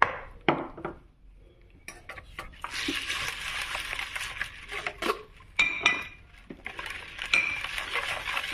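Wire whisk beating a thick yogurt-and-flour mixture in a mixing bowl. A few separate knocks and scrapes come first, then from about two and a half seconds in a fast, steady whisking rattle, with the wires clicking against the bowl and a couple of brief clinks.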